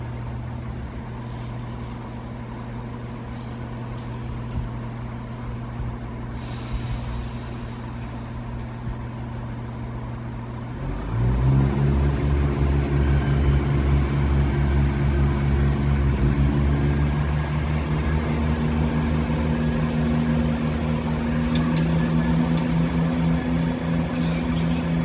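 Class 170 Turbostar diesel multiple unit idling at the platform, with a short hiss of air about six and a half seconds in. About eleven seconds in its diesel engines open up and the train pulls away, the engine note stepping up in pitch and running louder.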